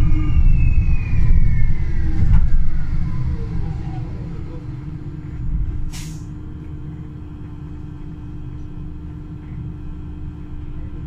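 Solaris Urbino 12 Hydrogen fuel-cell bus slowing down: its electric drive's whine falls steadily in pitch over the first few seconds while the rumble fades. About six seconds in there is a short, sharp pneumatic air hiss, then a quieter steady low hum.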